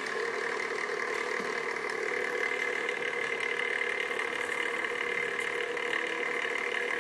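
Van de Graaff generator's electric motor and belt running with a steady hum.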